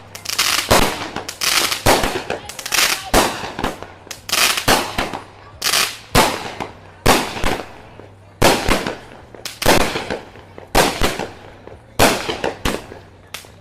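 A 12-shot consumer firework repeater that shoots flaming balls, firing shot after shot: a string of sharp bangs, often in close pairs, about one a second.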